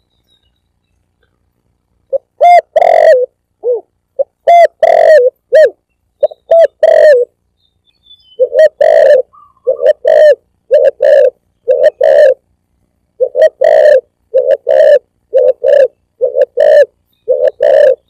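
Spotted dove (tekukur) cooing: after about two seconds of silence, a few loud coos with gaps, then from about eight seconds in a steady run of short coos close together.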